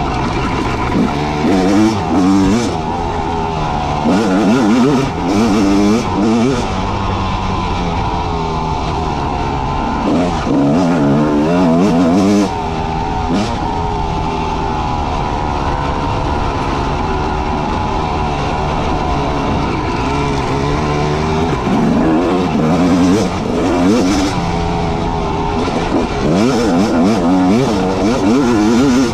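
Motorcycle engine running under way, the revs climbing and dropping again and again as the throttle is opened and closed through the gears.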